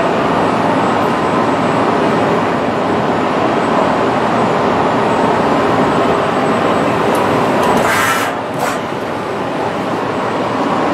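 Milltronics CNC lathe running a thread-repair pass, with loud, steady machine noise as the threading tool follows the existing thread. About eight seconds in there is a brief sharp hiss-like burst as the tool clears the end of the thread, after which the noise is a little lower.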